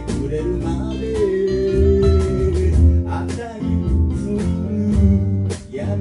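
Live folk band playing an instrumental passage: a harmonica held in a neck rack plays a melody, with long held notes, over strummed archtop and acoustic guitars.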